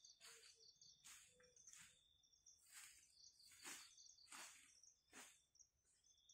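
Faint forest insect chorus: a steady, high, pulsing trill, with soft rustles about every three-quarters of a second.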